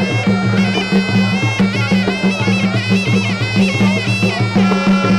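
Traditional Khmer boxing ring music: a sralai reed oboe playing a continuous, shifting melody over a low pulsing drum beat.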